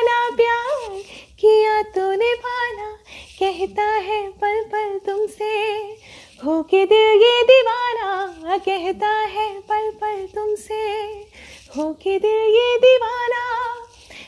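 A woman singing a melody unaccompanied, in phrases of long held notes with vibrato and quick ornaments, pausing briefly for breath a few times.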